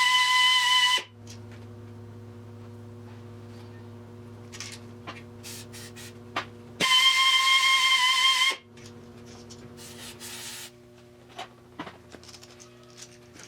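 Drill-driven cylinder hone spinning in an engine cylinder: a loud, steady high-pitched whine in two runs of about two seconds each, the first ending about a second in and the second starting near seven seconds, with a steady low hum underneath.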